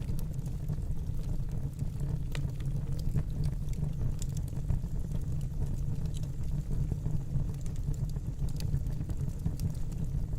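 Wood fire burning in a fireplace: a steady low rumble with scattered small crackles and pops.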